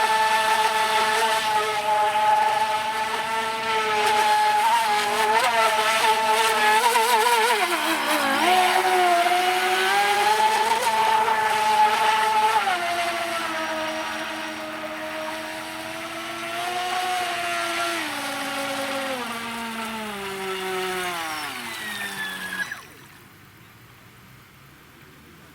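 Brushless motor of a FEILUN FT012 RC speedboat whining at speed over the hiss of water, its pitch wavering and dipping with the throttle. Near the end the whine slides steadily lower as the boat slows, then cuts off suddenly.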